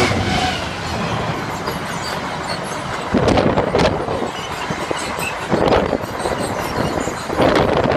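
Class 66 diesel freight locomotive passing close by, followed by a long train of container flat wagons rolling past. A steady rumble carries paired wheel clatters about every two seconds as each wagon's wheels go by.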